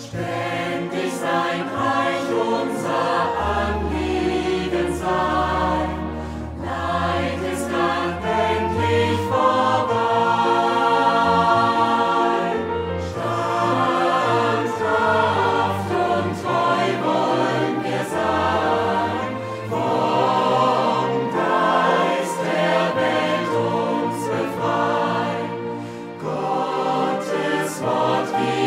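Music with a choir singing slow, held chords over a steady bass line.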